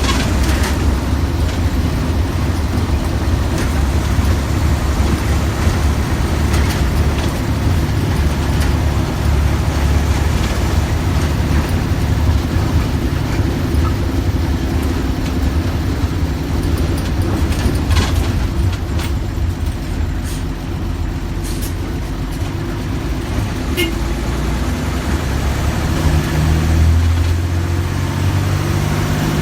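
Mercedes-Benz OF-1315 bus's diesel engine running steadily, then revving up briefly near the end.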